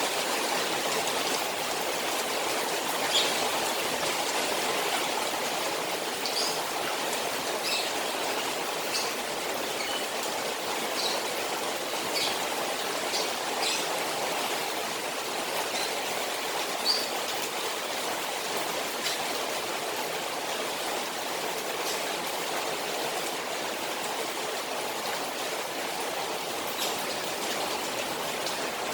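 Rain falling on a koi pond: a steady wash of running water with scattered sharper drips and splashes.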